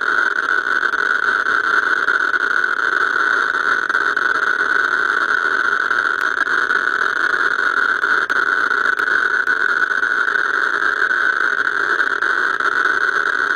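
Eberline ESP-1 Geiger counter speaker clicking so fast that the clicks merge into a steady crackling buzz. The pancake probe is on a radium-painted clock dial, and the rate of more than 10,000 counts per minute is the sign of its radium luminous paint.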